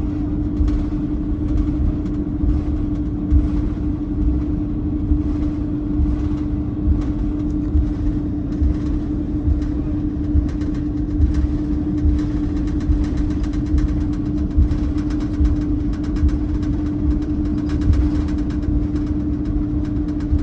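Cabin noise inside an Airbus A330-203 airliner: its GE CF6-80E1 turbofans give a steady drone with a constant hum, over a low rumble broken by frequent small knocks and jolts.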